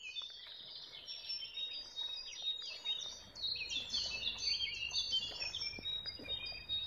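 Songbirds singing busily, a fast, overlapping jumble of high chirps and short whistles that runs on without a break, over faint low outdoor rumble.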